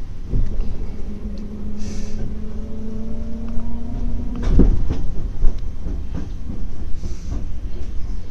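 Electric train running slowly, heard from inside the front car: a steady low rumble with knocks from the wheels and a flat hum held for a few seconds, then a sharp clack about four and a half seconds in and lighter knocks after it.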